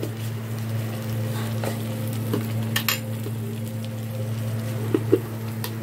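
A spatula stirring onion paste frying in oil in a karahi, scraping and knocking against the pan in a few short clicks, with two close together about five seconds in. A steady low hum runs underneath.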